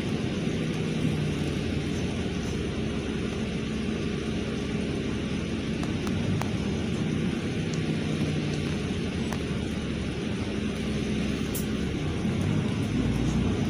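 Interior of a LiAZ 5292.67 city bus under way: steady low engine drone and road rumble, growing a little louder near the end.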